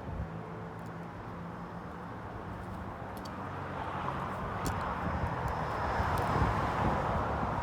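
Outdoor city ambience: traffic noise and wind, swelling louder about halfway through.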